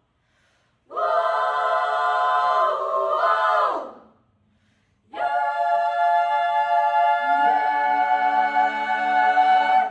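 A cappella choir singing the closing bars: one phrase, a short pause, then a long held final chord. Lower voices join the chord partway through, and it cuts off together at the end.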